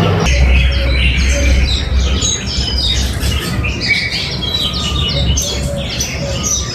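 A flock of small birds chirping and twittering together, many short overlapping calls, over a steady low rumble.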